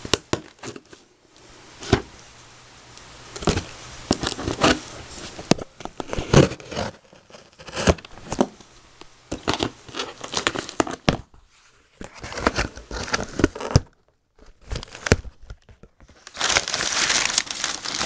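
A cardboard shipping box being opened by hand, heard as a run of sharp, irregular scrapes, rips and crinkles with short pauses between them. About sixteen seconds in it becomes a dense, continuous, louder rustle as hands dig into the plastic-wrapped contents.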